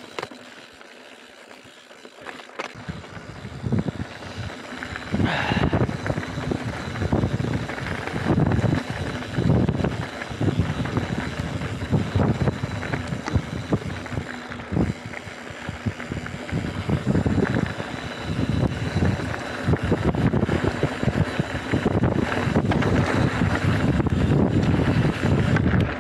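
Wind buffeting the microphone of a camera on a mountain bike riding fast downhill, mixed with tyre and frame rattle over dirt and gravel. It is quieter for the first couple of seconds, then louder and gusting from about three seconds in.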